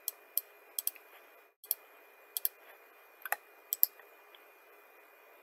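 Computer mouse clicking: about a dozen sharp single clicks, several in quick pairs, as a 3D-modelling command is worked through. Under them is a faint steady microphone hiss with a thin high tone.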